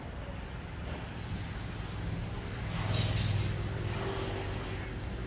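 Road traffic: a steady low engine hum, with a vehicle swelling louder as it passes about three seconds in.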